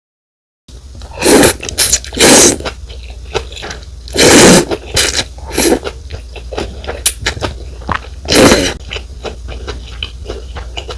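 Close-miked eating of rice noodle soup (pho): five loud slurps of noodles and broth, each about half a second, with wet chewing clicks between them. It starts after a moment of dead silence.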